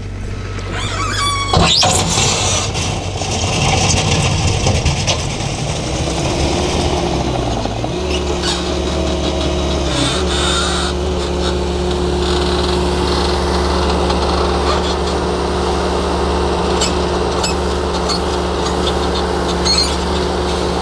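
Stand-on mini skid steer running as its one-yard bucket digs into a gravel pile and lifts. The engine note varies at first, then settles into a steady hum about eight seconds in. Gravel scrapes and rattles, with gravel spilling from the tipped bucket near the end.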